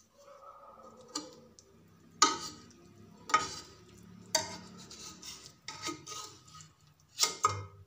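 Metal slotted spatula scraping and tapping against a non-stick wok, working under the edge of a pizza to loosen it from the pan. The scrapes come in about eight separate strokes, with a pair close together near the end.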